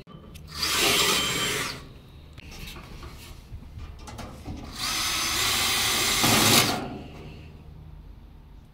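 Power drill driving screws in two runs: a short one of about a second, then a longer one of about two seconds, with quieter handling noise between.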